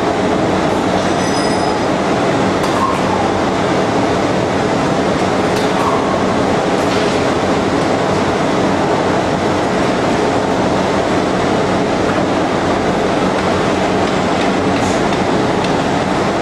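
CNC vertical shaping lathe running steadily, its spindle turning a porcelain insulator blank under the cutting tool: a loud, even mechanical noise with a steady low hum and a few faint clicks.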